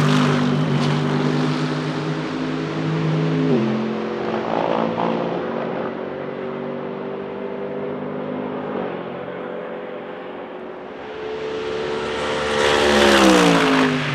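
Mercedes-AMG GT3 Evo race cars' naturally aspirated V8 engines at speed. One runs at high revs moving away, its pitch dropping in steps at about three and a half and nine seconds as it upshifts, and fades. Near the end another passes close and loud, its pitch falling sharply as it goes by.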